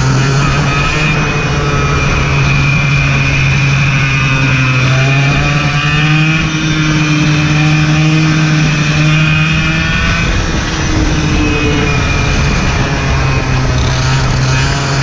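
Racing kart engine running hard on track, heard from onboard. Its note climbs steadily about a third of the way through, then drops back about two-thirds through as the kart slows. A steady rushing noise runs underneath.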